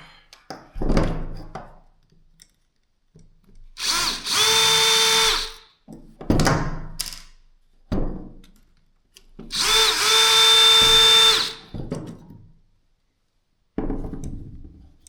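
DeWalt cordless drill motor run twice in short bursts of about two seconds, about four seconds in and again about ten seconds in; each time it spins up quickly to a steady whine and then stops. Knocks and clatter of the drill being handled come between the runs.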